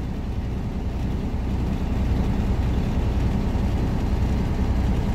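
Detroit DD15 diesel truck engine running steadily at a raised idle of about 1,250 rpm during a parked DPF regeneration.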